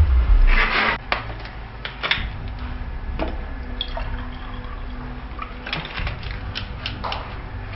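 Water poured from a plastic bottle into a drinking glass, with a few light clicks and taps as the bottle is handled. A loud burst of sound fills the first second.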